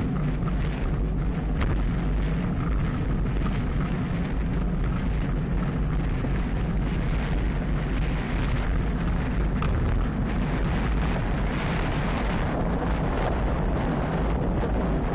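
Steady wind buffeting the microphone of an action camera carried at riding speed.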